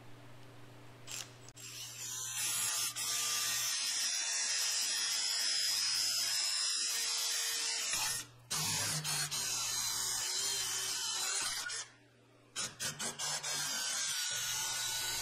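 Cordless drill boring through an aluminum plate clamped in a bench vise, running in long stretches with a short pause about eight seconds in, then a few quick bursts before running steadily again near the end.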